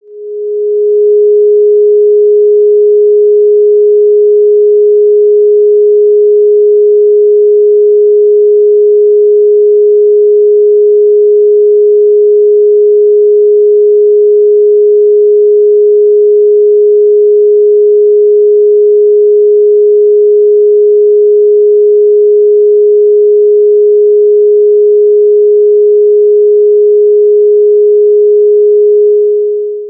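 A single pure electronic sine tone, mid-pitched at roughly 450 Hz, held perfectly steady. It fades in over about the first second and fades out at the very end.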